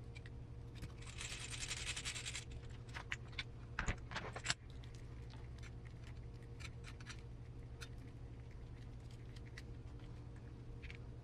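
Hands working wires into the plastic cable retainers of an RC car's receiver box: scattered small plastic clicks and handling sounds, with a scratchy rustle about a second in and a few sharper clicks around four seconds in.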